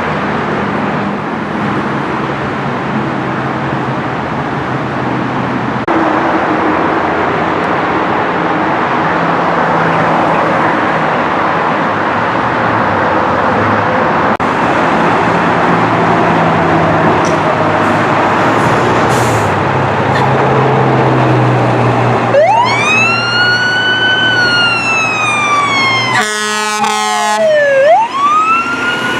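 Fire engine pulling out, its engine rumbling steadily and getting louder about 6 s in. About 22 s in its siren starts wailing, rising and slowly falling, with a brief fast-warbling stretch before the wail rises again near the end.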